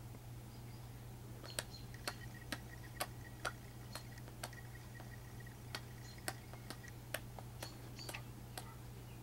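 A string of sharp, light clicks at about two a second, pausing briefly near the middle, over a steady low hum.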